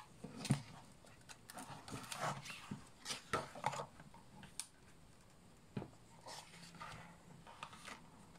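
A hardcover picture book being handled on a wooden table: a soft knock about half a second in, then the cover and pages turned and pressed flat, with scattered paper rustles and light taps.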